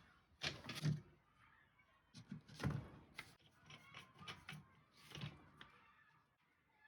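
Irregular light knocks, clicks and short scrapes of hand work with wood and tools, a dozen or so scattered through, the loudest about a second and a half to three seconds in.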